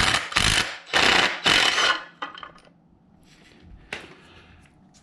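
Metal hand tools clattering and clinking against each other, like sockets being rummaged through. There are several loud clattering bursts in the first two seconds, then a few lighter clinks.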